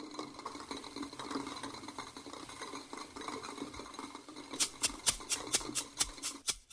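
Faint close rustling and small soft clicks. About two-thirds of the way in, a steady beat of sharp percussion ticks starts, about three a second, opening a band's song.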